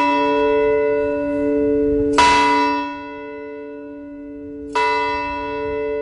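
Large fire station bell tolling the last alarm for a fallen firefighter. It is struck twice, about two and a half seconds apart, each strike ringing on with a long, slowly fading hum.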